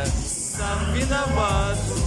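Male singer singing a pop ballad live into a microphone over band accompaniment with a steady bass line, heard through the hall's PA; a new sung phrase begins about half a second in.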